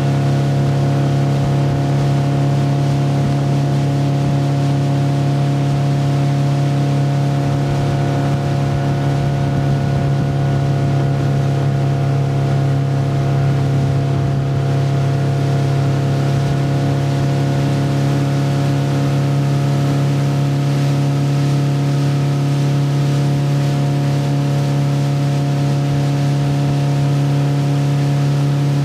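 Motorboat engine running at a steady towing speed, pulling a water skier, over the rush of the boat's wake.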